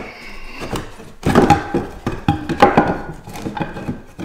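A piece of timber knocking and scraping against floorboards and joists as it is slid and wedged into place under a lifted floorboard: a run of irregular hollow wooden knocks, thickest in the middle.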